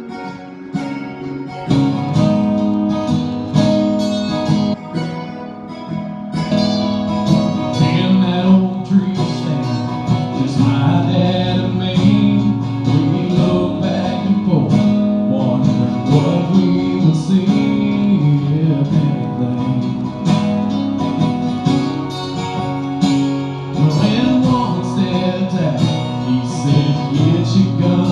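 Two acoustic guitars played live together, strummed and picked, with a voice singing over them.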